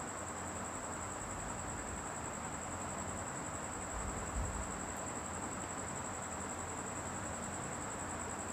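Steady hiss of a pot of tamarind-and-sugar chutney boiling on a gas burner, with a faint steady high whine above it and a soft low bump about four seconds in.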